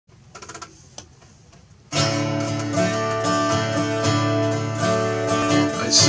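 Yamaha twelve-string acoustic guitar: a few faint notes, then about two seconds in it starts being strummed in full, ringing chords, the introduction before the singing.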